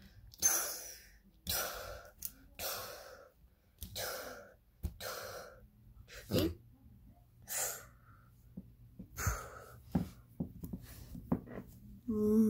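A child voicing breathy, hissing monster roars for a toy Godzilla figure, about eight short bursts, each under a second, with a few soft knocks between them.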